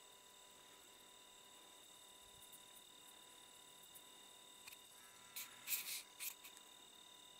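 Near silence: a faint steady high-pitched electronic whine, with a few short, sharp high-pitched chirps or ticks about five and a half to six and a half seconds in.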